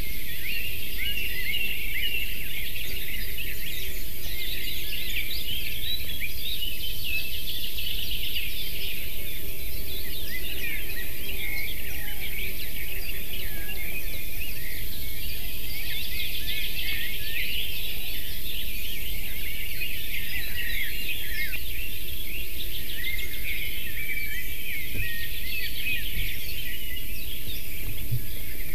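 Chorus of many forest songbirds chirping and singing at once, with a steady high hiss underneath.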